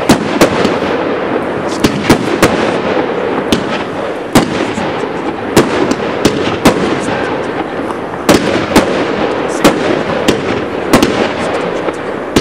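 Pyro King consumer fireworks cakes (Gold Brocade Bash and Turn It Loose) firing: a rapid, irregular string of sharp reports as shells launch and break, about fifteen in all, over a steady background din.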